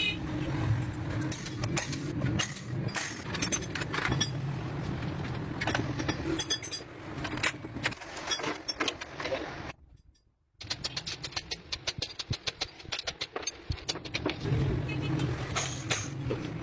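Honda 125 motorcycle's single-cylinder engine running steadily. It cuts out briefly about ten seconds in, then comes a quick run of metallic clicks and rattles before the steady running returns near the end.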